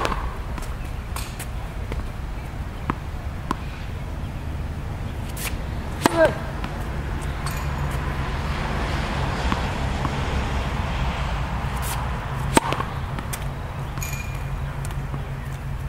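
Tennis racket striking a ball on a serve, a sharp pop right at the start and another about twelve and a half seconds in, with a few lighter taps of tennis balls bouncing on the hard court and a short squeak about six seconds in.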